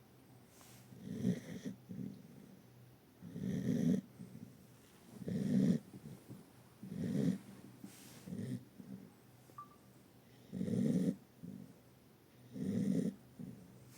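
A sleeping pet snoring: about seven low snores, one every one and a half to two seconds, with a longer pause a little past the middle.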